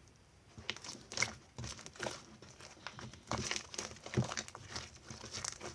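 Slime being squeezed and stretched by hand: an irregular run of short sticky pops and crackles.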